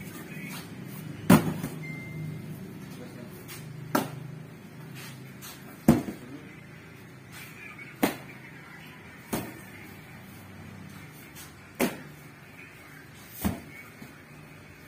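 Cardboard cartons thumping as they are caught and dropped onto stacks, a sharp knock every couple of seconds, over a low steady hum that fades after the first half.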